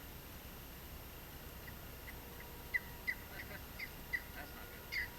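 A bird calling in a quick series of short, downward-slurred notes, about three a second, starting about two seconds in.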